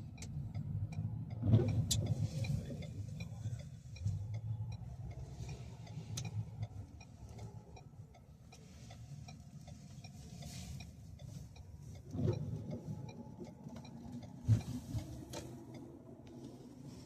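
Low, steady rumble of a vehicle running, with a run of light, regular ticks and a few sharper knocks, the loudest about a second and a half in.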